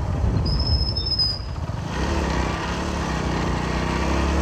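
Honda Passion XPro motorcycle's small single-cylinder engine running while pulling up a steep hill road, its pitch rising and wavering in the second half. A brief high squeal sounds about half a second in and lasts about a second.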